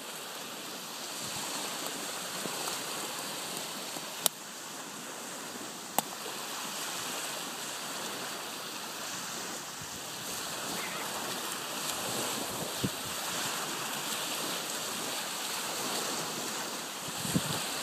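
Small waves breaking and washing steadily on a beach. Two sharp clicks sound about four and six seconds in.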